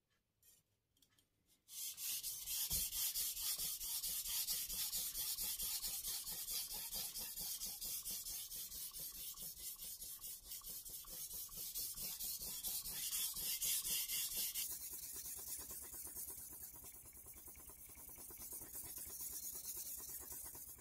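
Kai Shun Gold chef knife's steel blade being stroked back and forth across the wet 1000-grit side of a Kai combination whetstone: a rapid, steady scraping rub. It starts about two seconds in and stops suddenly near the end.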